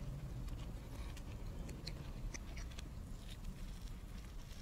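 A person chewing a mouthful of chicken sandwich, with faint, scattered wet mouth clicks over a steady low hum.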